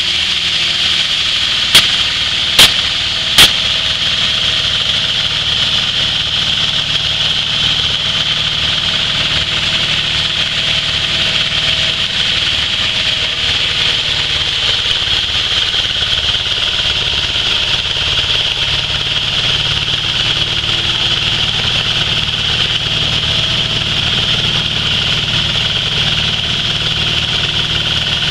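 Engine-driven grain flour mill (penepung) running steadily while grain is poured into its hopper, a constant low engine hum under a grinding hiss. Three sharp clicks sound about two to three and a half seconds in.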